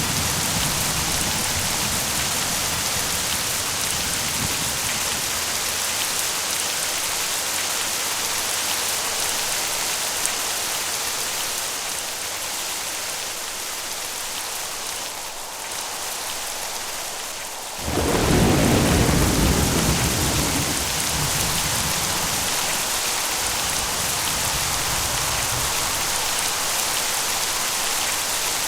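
Steady heavy rain, with a sudden loud clap of thunder about two-thirds of the way in that rumbles away over several seconds.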